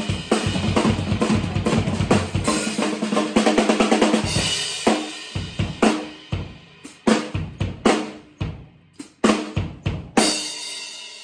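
Acoustic drum kit being played: a fast, dense run of snare, tom and bass drum strokes for about four seconds, then single accented hits spaced apart. It ends with a crash about ten seconds in that rings out and fades.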